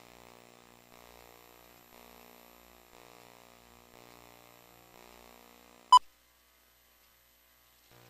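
Film countdown leader: a faint hum that pulses about once a second, then one short, loud beep, the countdown's sync pop, about six seconds in as the count reaches 2, followed by dead silence.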